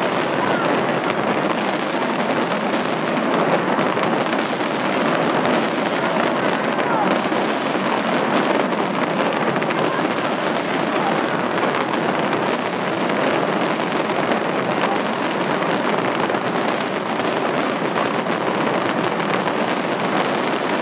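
A fireworks display: a continuous, dense barrage of bursts and crackling with no pause, with crowd voices mixed in underneath.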